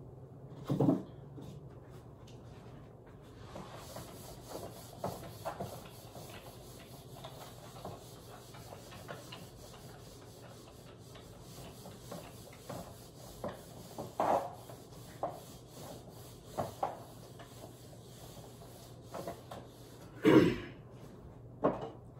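Whiteboard eraser wiping across a whiteboard in a series of short rubbing strokes, over a faint steady hum. There is a knock about a second in and two more near the end.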